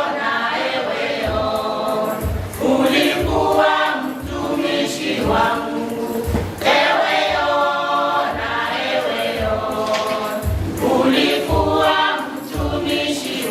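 Choir singing a gospel song over a steady low drum beat.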